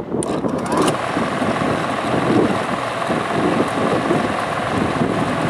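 Belt-driven centrifugal exhaust fan with a new 1/4 hp electric motor switched on: a click, then the motor and blower come up to speed within about a second and run steadily with a rush of air.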